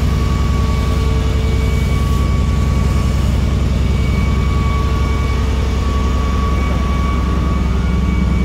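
Steady, loud drone of plant machinery, a belt-driven electric motor running, with a faint constant whine above it.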